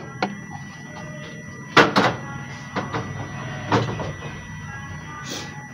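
Kitchenware knocking and clattering: a few sharp knocks, two close together about two seconds in and more a second or two later, over a low steady background.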